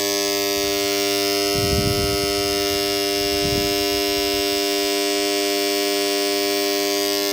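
A submersible-pump panel's AC contactor buzzing loudly and steadily: its coil core cannot pull shut because an insect has got inside, so the metal cores do not meet. Brief low knocks twice in the first half.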